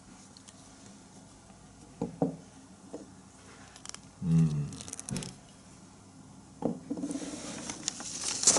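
Handling noises: scattered light knocks and clicks, a brief low hum about four seconds in, and a rustling hiss with more clicks near the end.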